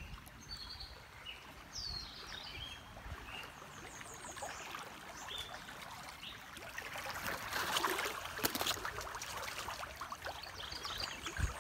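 Shallow river water trickling and splashing over rocks around a drifting inner tube, with a few short high chirps in the first few seconds. The water gets louder and crackles about eight seconds in.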